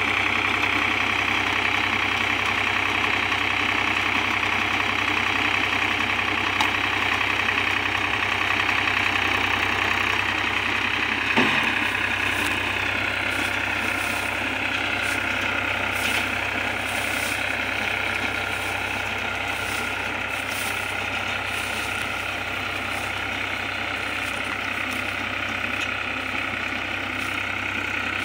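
Powertrac Euro 47 tractor's diesel engine running steadily while it drives a compact round baler through paddy straw, growing a little fainter as the tractor moves away. A single sharp knock sounds about eleven seconds in.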